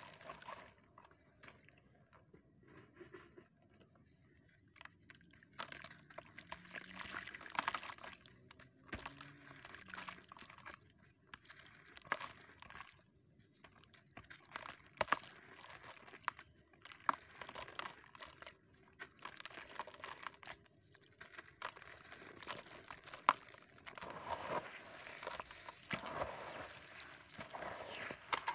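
Hands crumbling sandy, dusty lumps in a plastic tub of water. The sound is wet crunching and splashing in irregular bursts with short lulls. It is quieter for the first few seconds.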